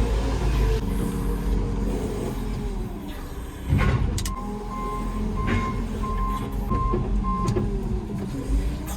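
Farm vehicle's diesel engine running, with a loud knock a few seconds in, then a reversing alarm beeping about seven times, two a second, as the vehicle backs up.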